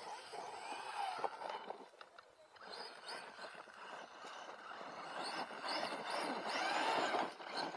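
Whine of the DF-Models DF-4 BL RC truck's 3000KV brushless motor, revving up and falling off again and again as it is driven, with the tyres scrabbling on loose dirt and gravel. It drops off briefly about two seconds in, and the revving is busiest near the end.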